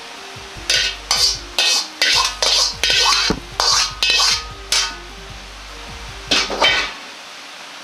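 Metal ladle scraping the inside of a carbon-steel Chinese wok in quick strokes, pushing stir-fried food out onto a plate: about a dozen scrapes, a short pause, then two more near the end.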